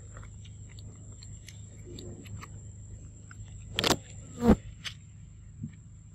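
Monkey eating a mango, with small wet clicks of chewing over a steady low hum. Two loud thumps about half a second apart come a little past halfway.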